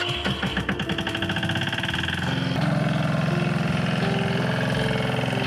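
Single-cylinder engine of a two-wheel walking tractor towing a loaded trailer, running at first and then pulling harder and louder about two and a half seconds in as the tractor moves off up the track.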